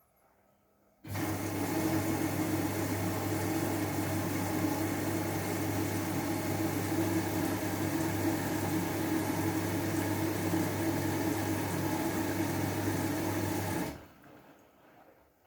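Washing machine taking in water: the inlet valve opens with a steady rush and hum about a second in and shuts off sharply near the end.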